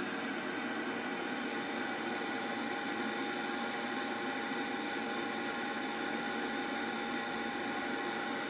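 A small motor running steadily: an even whir with a faint constant whine.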